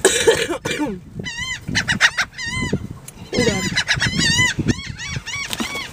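Seagulls calling: a run of short, repeated cries that rise and fall in pitch, coming in clusters with a longer burst of calls past the middle.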